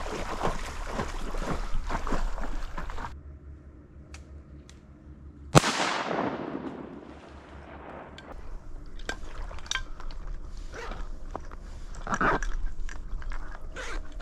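Water splashing and dripping, then about halfway through a single sharp shotgun shot with a long fading echo, followed by more light splashing and dripping.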